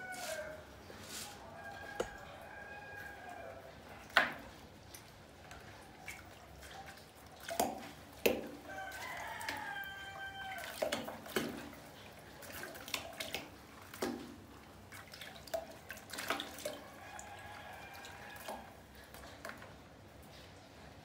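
A rooster crowing several times and chickens clucking, mixed with sharp splashes and drips of water as rats drop off a spinning plastic bottle into a bucket of water.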